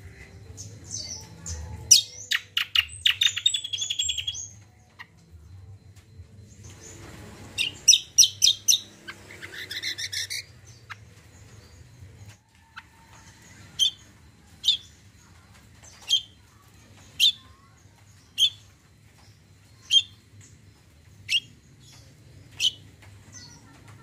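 Caged kacial songbird singing: two quick runs of rapid, sharp high notes, then a string of eight single sharp chirps about one every second.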